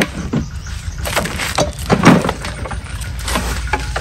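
Knocks and clicks as a motor scooter's seat is unlocked and swung up, then handling and rustling inside the under-seat compartment, over a steady low rumble.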